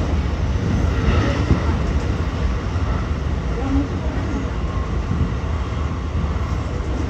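Cabin running noise of a JR West 223 series 2000 electric multiple unit cruising at a steady speed: a constant low rumble of wheels on rail, with no rise or fall in pitch.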